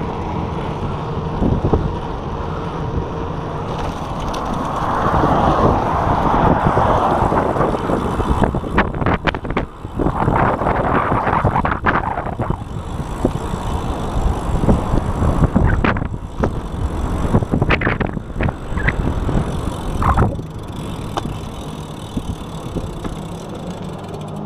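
Wind buffeting an action camera's microphone on a moving bicycle, a steady low rumble with swells, broken by a few sharp knocks and rattles.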